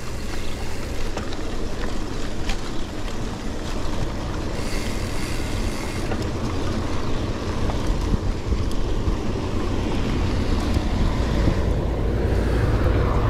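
Steady road noise of a car driving along a highway: a low rumble of tyres and engine with a hiss over it, which rises briefly about five seconds in.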